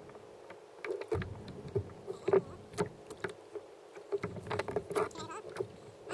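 Irregular knocks and clicks of gear being handled on a plastic fishing kayak, the sharpest about two and a half seconds in, over a low rumble that comes and goes.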